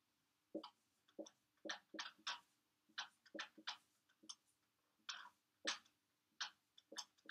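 Dry-erase marker writing on a whiteboard: a quick run of about fifteen short, faint strokes as words are written out.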